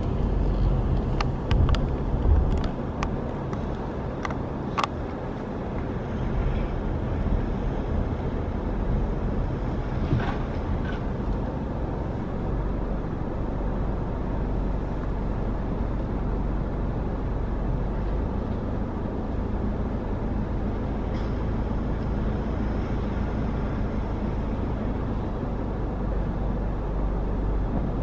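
Car driving at steady speed: even engine and tyre rumble, with a few sharp clicks in the first few seconds.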